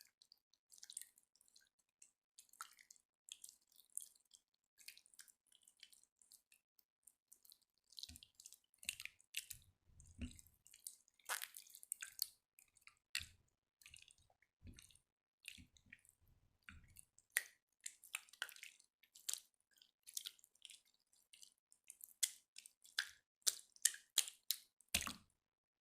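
Jiggly slime being squeezed and poked by hand: an irregular run of short wet clicks and squelches, with a few deeper, fuller squishes about eight to eleven seconds in and again near the end.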